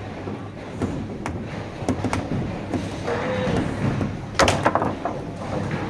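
Table-football play: the ball and the rods' figures knocking on the table, with a quick run of sharp clacks about four and a half seconds in.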